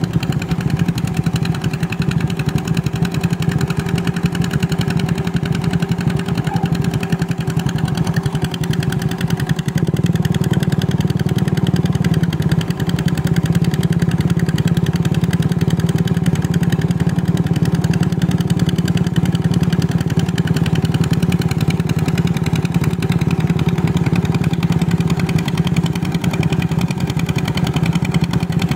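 Engine of a two-wheel hand tractor running steadily under load as its cage wheels drag a levelling board through flooded paddy mud. The sound shifts slightly about ten seconds in.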